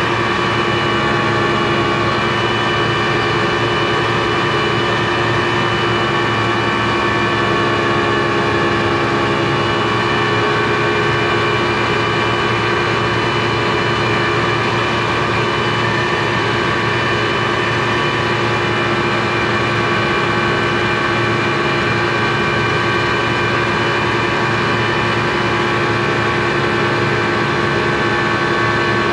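Speedboat engine running steadily under way: a loud, unchanging drone with several steady whining tones over it.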